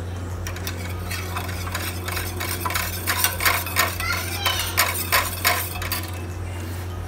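Metal spoon stirring a liquid in a small stainless steel bowl, clinking and scraping against the sides. The clinks pick up about a second in and are busiest in the second half, over a steady low hum.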